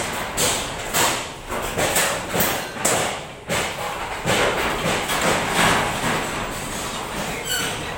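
Construction-site banging: irregular sharp thuds and bangs, roughly one or two a second, with a brief high squeal near the end.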